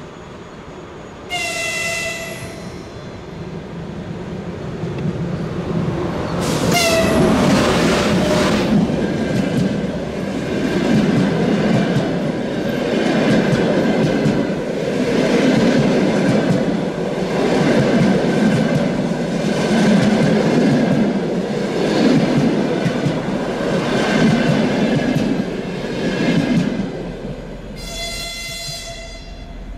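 EP1 electric locomotive hauling a mail and baggage train sounds its horn, a chord of several tones, about a second in and again at about six seconds. The train then passes close by with a loud clatter of wheels over the rails, swelling about every two seconds as car after car goes by. A horn blast sounds again near the end as the clatter dies away.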